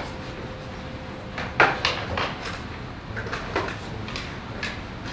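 Scattered clicks and knocks of equipment being handled and set down on a desk as a soldering station is set up, the loudest knock about a second and a half in, then several lighter clicks.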